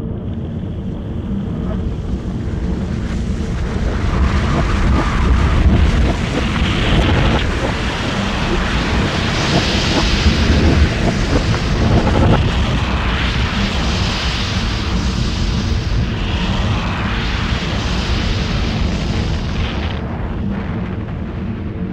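Loud rushing, rumbling noise over a low steady hum. It builds over the first few seconds, peaks around the middle and eases off near the end.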